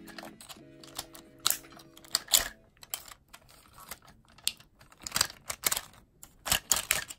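Hard plastic parts of a King Tiger transforming robot toy clicking and clacking as they are twisted and snapped into place, a string of irregular sharp clicks, the loudest a little over two seconds in.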